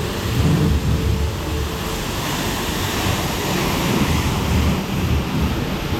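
A moving car heard from inside its cabin: a steady rumble of wind and road noise, with no clear engine note standing out.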